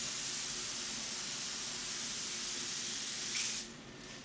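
Hose-fed compressed-air spray gun hissing steadily as it sprays paint onto a stretched backdrop; the spray cuts off about three and a half seconds in.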